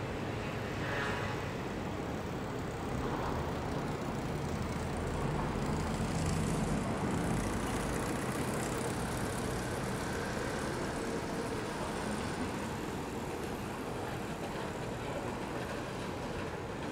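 Steady city traffic noise, a low rumble with hiss on top, swelling a little around the middle as a vehicle passes.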